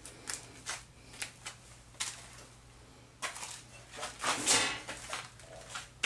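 Irregular clinks, scrapes and rustles of metal parts and tools being handled in a machine shop, loudest in a longer clatter about four and a half seconds in, over a faint steady hum.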